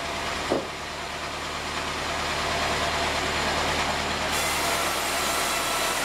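Band sawmill machinery running with a steady low hum, with a single knock about half a second in as the timber is handled. A higher hiss joins about four seconds in.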